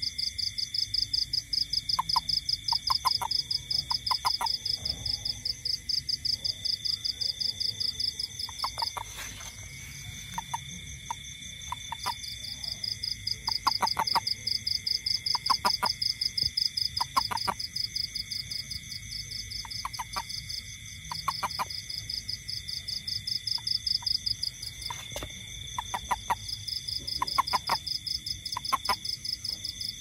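A toad held in the hand gives short chirping calls, each a cluster of a few quick pulses, every second or two: the release call a toad makes when grasped. Behind it is a loud, steady, fast-pulsing night insect chorus, which drops out briefly about a third of the way in.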